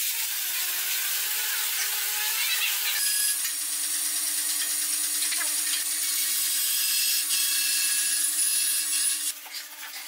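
Power tool cutting or sanding wood: a steady noise with a high motor whine. The sound changes abruptly about three seconds in and stops shortly before the end.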